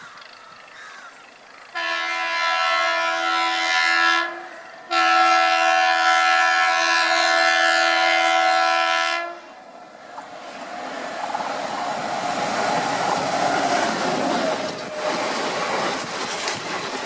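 Indian Railways train horn sounding two long blasts on a single pitch, the second longer than the first. Then the loud, rumbling rattle of the train running along the track builds up and keeps going.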